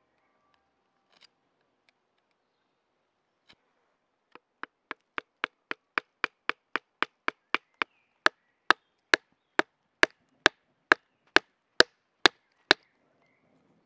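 Knife being driven into a small piece of wood on a wooden chopping stump: a run of sharp, evenly spaced wooden knocks, about four a second and lighter at first, then about two a second and louder for the last few seconds.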